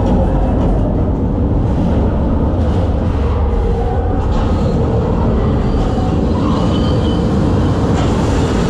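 Loud, steady low rumble with a rushing noise from a motion-simulator flight ride.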